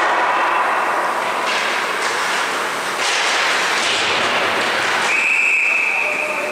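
Hockey skates scraping and carving on the rink ice with players' sticks and general rink noise. About five seconds in, a referee's whistle sounds, one steady high blast held for over a second, stopping play.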